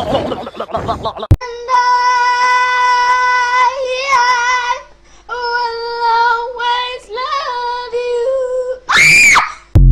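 A high-pitched voice singing three long held notes, each wavering near its end, followed near the end by a short squeal that rises and falls. About a second of chatter and a sharp click come before the singing.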